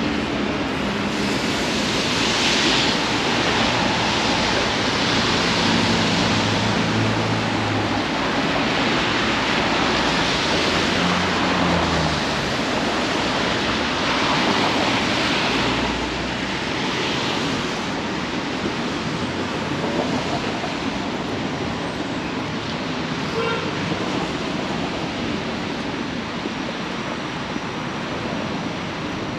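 Street traffic on wet pavement: a steady hiss of tyres with several vehicles swelling past in the first half, and a low engine hum from a heavier vehicle passing about six to twelve seconds in.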